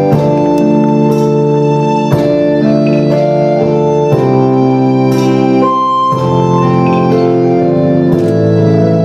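Organ music: sustained chords that shift every second or two in a slow, steady progression.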